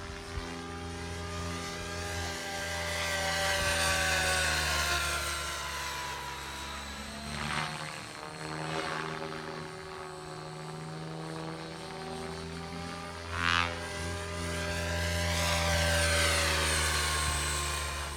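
Align T-Rex 700 radio-controlled helicopter flying overhead: a steady multi-tone whine from its rotors and drivetrain that bends up and down in pitch and swells as it passes, loudest about four seconds in and again near the end. Two brief sharp swells come around seven and thirteen seconds in.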